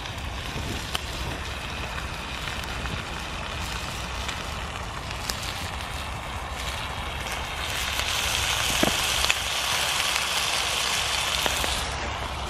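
Twig fire crackling in a small folding wood-burning stove, with a pan hissing and sizzling on top. The sizzle grows louder about eight seconds in.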